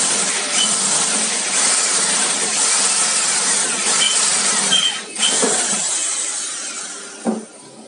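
Bosch electric drill boring through stainless steel sheet, a steady grinding drill noise. It dips for a moment about five seconds in, then tails off as the bit comes out of the hole, with a single knock near the end.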